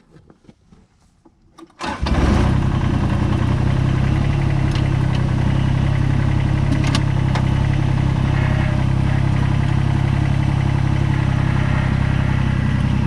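Kubota BX22 tractor's small three-cylinder diesel engine starting about two seconds in and then running steadily. A few light clicks of handling come before it.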